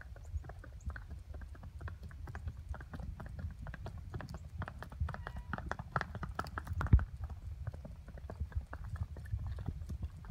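Hoofbeats of a ridden horse moving at a brisk gait: a quick, even run of sharp clops over a low rumble, with one louder strike about seven seconds in.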